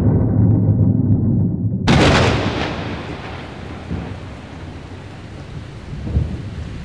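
Thunder, most likely an added sound effect: a heavy low rumble, a sharp crash about two seconds in, then a long roll that slowly dies away, with another small rumble near the end.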